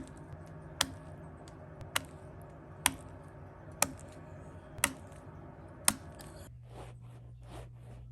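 A series of seven sharp clicks about a second apart. About six and a half seconds in, it gives way to a quicker run of softer crunching strokes, about three a second.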